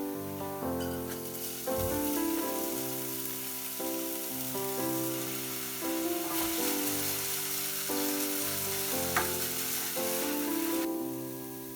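Food frying in a pan with a steady sizzle, under soft piano background music; the sizzle stops near the end.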